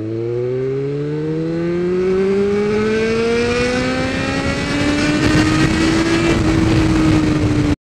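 Motorcycle engine accelerating in one gear, its pitch rising smoothly with no gear change and levelling off about six seconds in, while wind rush grows with speed. The sound cuts off abruptly near the end.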